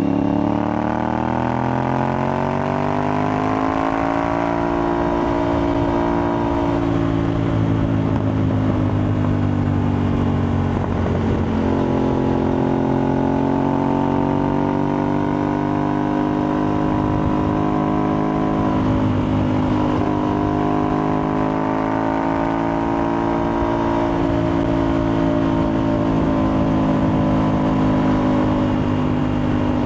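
Aprilia Tuareg 660's parallel-twin engine with an Akrapovic-replica exhaust, under way: it climbs in pitch over the first few seconds and then holds a fairly steady note. It eases off briefly about a third of the way in and again past the middle.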